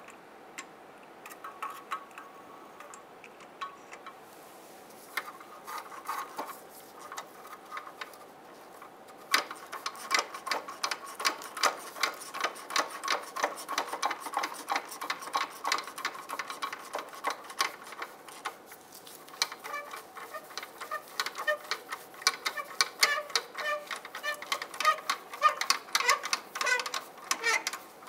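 Hand ratchet on an extension clicking as it runs a nut up a catalytic converter flange stud. A few scattered clicks at first, then fast, steady ratcheting from about a third of the way in, louder near the end.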